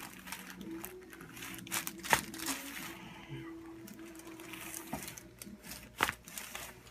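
Joint pops from chiropractic adjustments: a sharp crack about two seconds in and a second one near the end, over faint rustling of the patient on the table.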